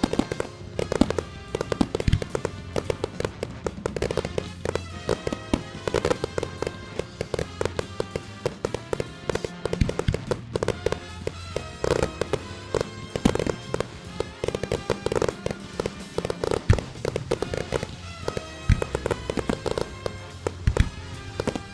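Fireworks bursting in quick succession, many sharp bangs and crackles, over loud music from loudspeakers playing the display's soundtrack.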